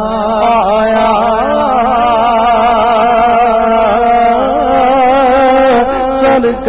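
Male naat reciter singing a long, held melismatic line that wavers and turns in pitch, over a steady low hum.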